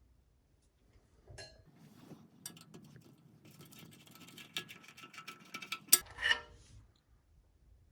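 Screws being unscrewed from the metal drain bracket on a Venco pottery wheel: a run of small clicks and scraping, ending with a sharp click and a clink about six seconds in.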